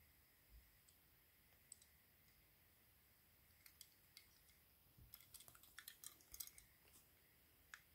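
Near silence with faint, scattered clicks and taps as fingers handle and turn a small die-cast toy van. The clicks come thickest about five to seven seconds in.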